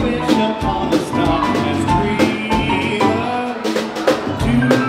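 A live band playing: a male singer at the microphone over drum kit, upright double bass and guitar, with a steady beat.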